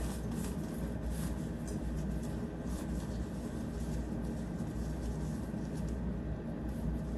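Intermittent rustling and scraping of beach-tent fabric and a tent pole being handled, over a steady low hum.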